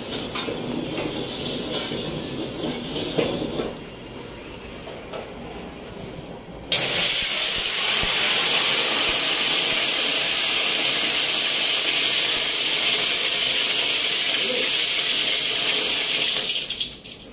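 A pan flaming up high over a gas burner: a loud, steady hiss cuts in suddenly about seven seconds in and holds for about ten seconds, dropping away near the end. Before it, quieter kitchen noise.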